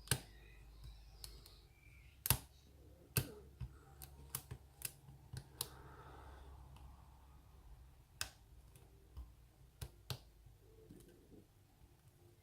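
Metal lock-picking tools clicking and tapping inside a pin-tumbler lock cylinder: about fifteen sharp, irregular clicks as the pins are worked, in a core the picker thinks has an overset pin.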